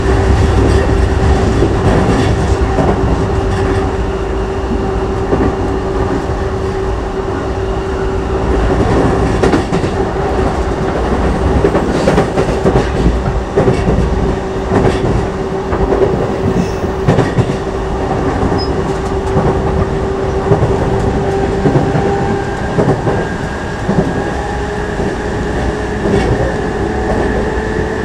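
E233-5000 series electric commuter train running between stations: wheels clacking over the rails with a steady electric-motor whine that rises a little in pitch near the end.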